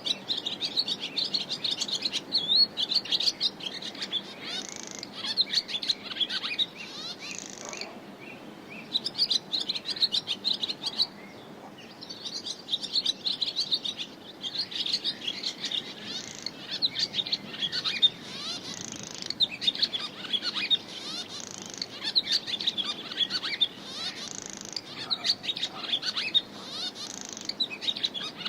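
Barn swallow twittering: a fast run of high chirps and warbling notes, broken by short pauses about eight and eleven seconds in.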